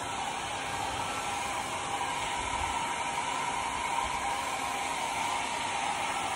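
Small handheld hair dryer running steadily while drying a dog's fur after a bath: a constant rushing hiss with a steady whine.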